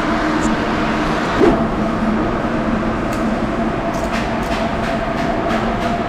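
Steady mechanical hum with a couple of constant tones, heard in a concrete parking garage, with a series of short light clicks in the second half.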